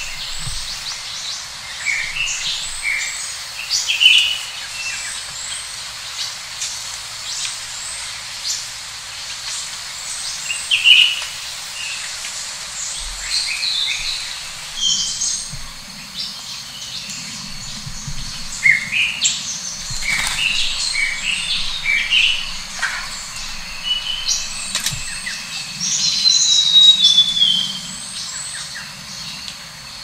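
A chorus of several wild birds: many short high chirps and whistled notes overlapping, with a thin high whistle sliding down in pitch near the end.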